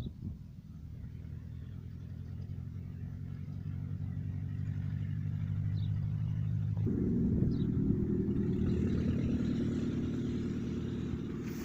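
A motor vehicle passing, its engine growing louder over several seconds; about seven seconds in the engine note jumps higher, then it slowly eases off.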